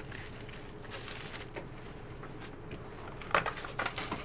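Trading cards and their packaging being handled: quiet for a few seconds, then a quick cluster of crinkles and clicks near the end.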